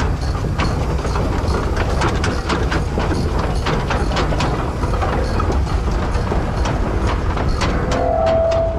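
Keck-Gonnerman steam traction engine running as it moves past close by: a steady low rumble broken by many sharp clicks and knocks. A steady high tone comes in near the end.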